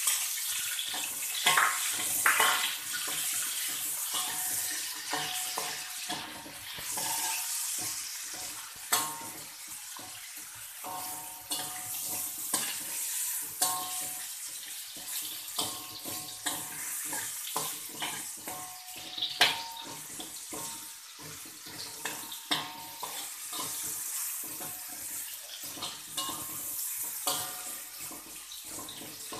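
Garlic and julienned ginger sizzling in hot oil in a wok, with a steady hiss, while a spatula scrapes and taps against the wok as they are stirred.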